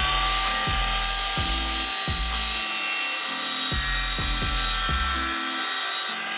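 Miter saw motor running at full speed while it cuts the composite bottom rail to length, with a steady high whine that starts winding down at the very end. Background music with a steady beat plays underneath.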